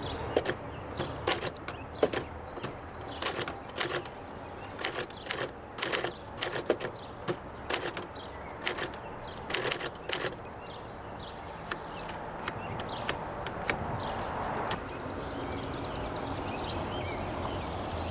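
R.C. Allen 600 manual typewriter being typed on: irregular sharp key strikes for about eleven seconds, thinning out and then stopping, leaving a steady background hiss.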